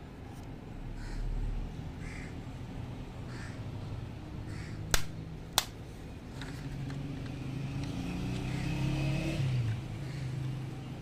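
Two sharp clicks about halfway through, half a second apart: the opened metal doors of a diecast Nissan Patrol model car snapping shut. Under them a low engine hum of a passing vehicle swells and fades.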